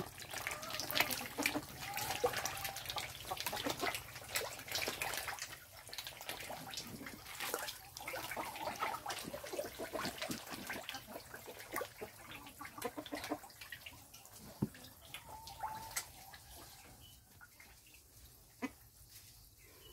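Lele catfish crowding and thrashing at the surface of a concrete pond as they take fish food: a dense run of small splashes and slaps on the water, thinning out and growing quieter over the last several seconds.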